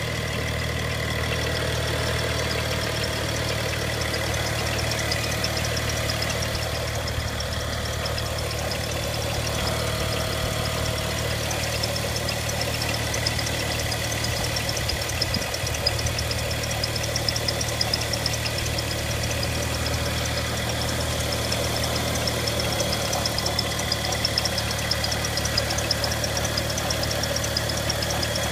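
BMW 335i's N55 turbocharged inline-six idling steadily, with a rapid, light ticking from the engine bay over the even hum.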